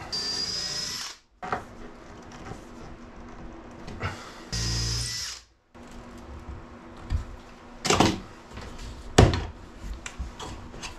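Cordless drill running in two short bursts of about a second each, roughly four seconds apart, each with a high whine, working into a wooden shelf bracket. A couple of sharp knocks follow near the end.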